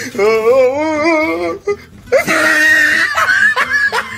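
A voice wailing in mock crying: one long wavering wail, then a second, harsher wail about two seconds in.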